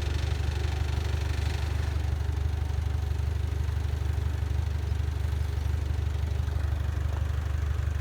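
Heavy diesel engine running steadily at low revs, a constant low rumble with no change in speed.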